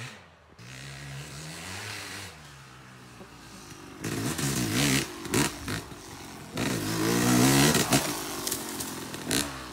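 Yamaha YZ250X single-cylinder two-stroke dirt bike engine revving up and down as it rides the trail. It is faint at first, grows louder about four seconds in, and is loudest as it passes close near the end.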